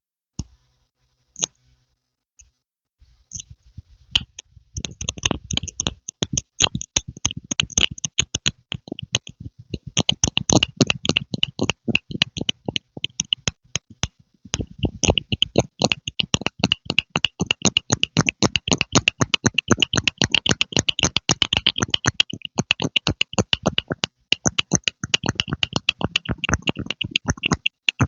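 ASMR 'pumping' sounds: a dense run of rapid wet pops and clicks, several a second. It begins with a few sparse clicks and becomes steady after about four seconds.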